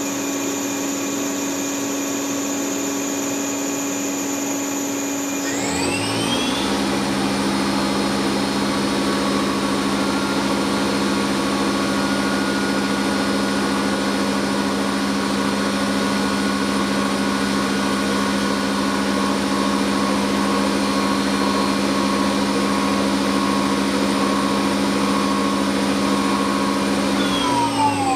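TRAUB TND 200 CNC lathe running with a steady machine hum. About five seconds in, the spindle spins up with a rising whine and runs at steady speed. Near the end it winds down with a falling whine.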